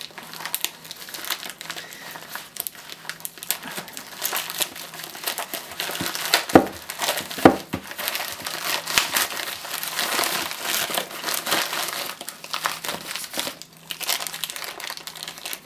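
Plastic packaging crinkling as hands tear open a poly mailer bag and handle the clear plastic bag inside. Two sharper, louder crackles come about a second apart near the middle.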